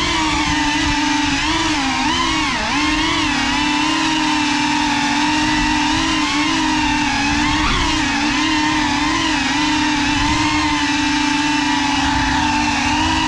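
GEPRC Cinelog 35 FPV drone's motors and propellers whining in flight, a steady buzzing tone whose pitch repeatedly dips and rises as the throttle changes.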